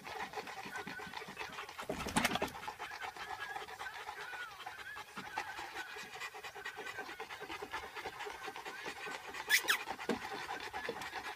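Several dogs panting hard and fast, with the breaths overlapping. There is a brief louder noise about two seconds in and a short, sharp, high sound near the end.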